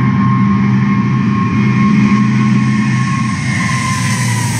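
Boeing 747's four turbofan engines at takeoff thrust: loud steady jet noise with a high whine that falls slightly in pitch near the end as the aircraft passes.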